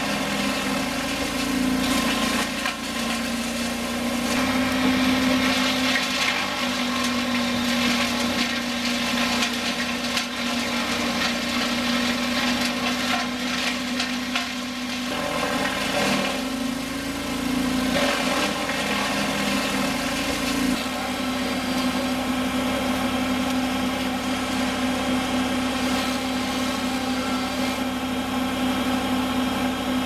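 Vermeer wood chipper running under load, its engine holding a steady note while it chews through branches and blasts chips out of the discharge chute in an uneven grinding rush. About 21 seconds in this gives way to a steadier, even engine drone.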